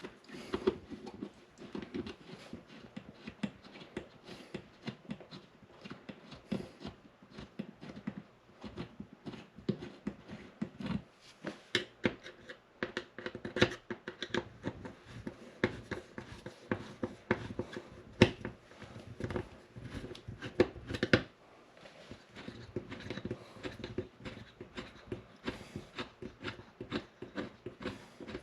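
Irregular clicks, knocks and light scraping of objects being handled and set down in a small room.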